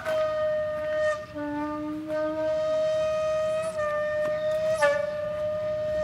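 Background music: a flute-like wind instrument holds one steady note with slight wavers, and a lower note sounds beneath it for about a second and a half near the start.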